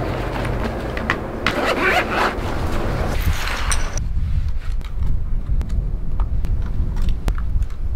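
Handling noise: fabric rustling and zipper and scraping sounds as a drone is taken out of a padded camera backpack, then a scatter of sharp clicks as the folding drone's arms are snapped open, over a steady low rumble.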